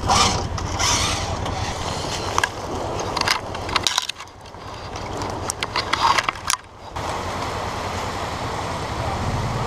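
Side-by-side UTV engine idling with a steady pulse for about four seconds, then a stretch of sharp metal clicks and clinks as a winch hook is handled, before a steady engine hum returns for the last few seconds.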